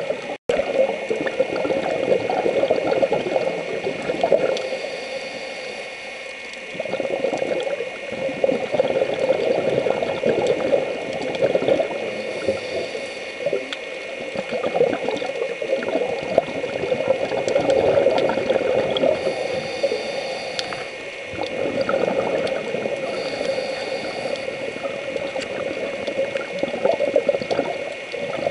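A scuba diver's breathing heard underwater: exhaled bubbles from the regulator rush and gurgle in surges, easing into quieter pauses every seven or eight seconds.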